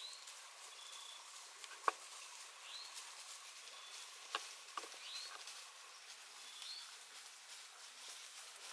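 Faint evening woodland ambience: a short rising chirp repeating every second or two over a steady faint hum, with a few sharp clicks about two, four and five seconds in.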